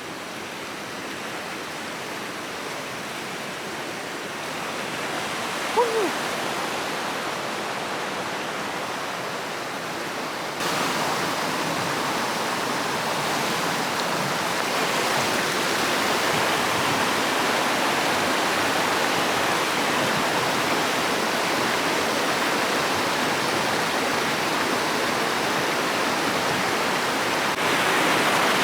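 Steady rush of flowing water that gets louder as it goes and steps up abruptly twice, with one short falling squeak about six seconds in.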